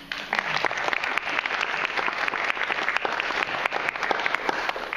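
Audience applauding: many hands clapping together in a dense, even patter.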